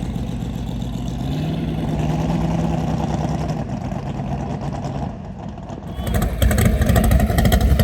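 Naturally aspirated Mustang engine running at a steady idle. It steps up to a slightly higher, held speed a little over a second in, eases off around five seconds, then breaks into much louder, rough running from about six seconds in.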